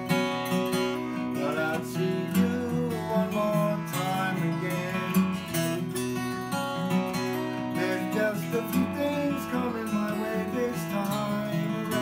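Steel-string acoustic guitar strummed steadily through a chord progression.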